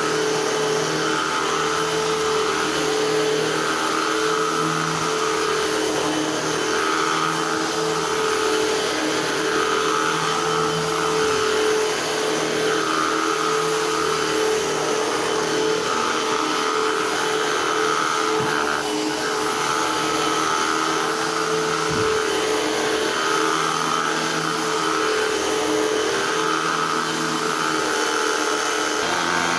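Eureka AirSpeed Unlimited Pet vacuum cleaner running steadily, its motor hum swelling and fading about every two seconds.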